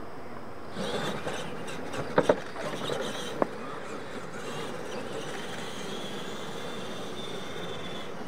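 Electric RC monster trucks racing on a dirt track: motors whining and tyres churning the dirt, with a few sharp knocks about two to three and a half seconds in as the trucks bounce over the ramps. A thin, steady high motor whine carries through the second half.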